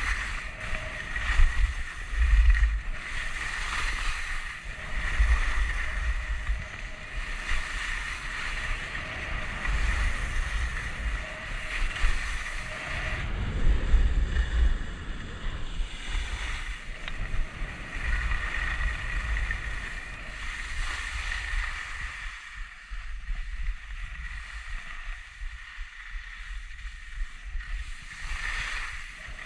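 Skis hissing and scraping over chopped, packed snow on a downhill run, with gusts of wind buffeting the camera microphone in low rumbles. The scraping thins out about three-quarters of the way through.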